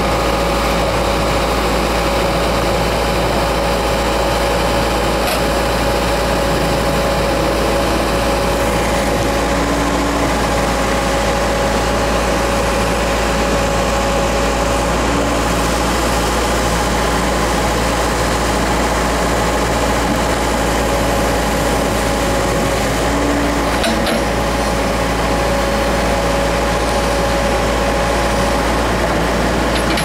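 Case backhoe's diesel engine running steadily while the hoe bucket pushes a corrugated plastic pipe into place, with a whine on top that breaks off and returns several times.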